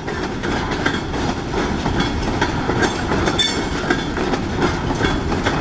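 Freight cars rolling past on jointed track, a steady rumble with wheels clacking over the rail joints and a brief high squeal about three seconds in. The track under them has newly replaced ties laid without fresh ballast.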